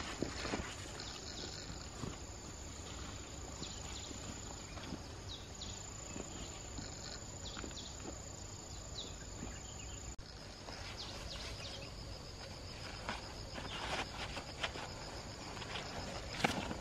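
Insects chirping with a steady high buzz, over scattered rustles and light knocks. About ten seconds in the sound changes abruptly and a fast pulsing insect trill comes in.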